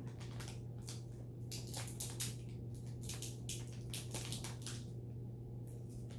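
Irregular crinkling and crackling of packaging as a pet monkey tears and crushes it, the crackles coming in quick uneven clusters over a steady low hum.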